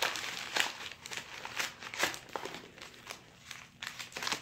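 Wrapping paper crinkling in short, irregular rustles as a small present is unwrapped by hand.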